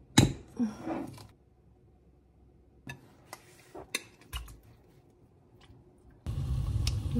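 Kitchen handling sounds: a sharp click as the cap of an oil bottle is opened, then scattered clinks and knocks of a bowl and utensils against a pot as pork goes in. About six seconds in, a steady low rumbling hiss starts suddenly.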